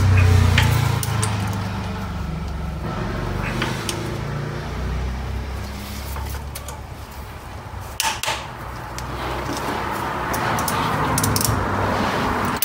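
Hand tools clicking and clinking on metal as a bolt is worked with a torque wrench, with one sharper click about eight seconds in and a run of small clicks near the end, over a steady low hum.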